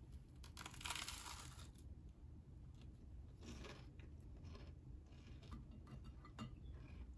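Faint rustling and scratching, like paper or material being handled, with a longer scrape about a second in, a shorter one a few seconds later, and a few small clicks.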